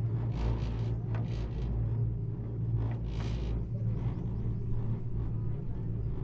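Steady low rumble and hum inside a moving rope car cabin as it climbs along its cable, with a brief rush of hiss about three seconds in.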